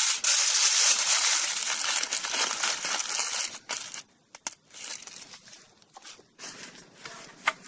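Aluminium foil crinkling and crumpling as it is folded and wrapped into a parcel. A dense rustle runs for about the first three and a half seconds, then breaks into scattered crackles.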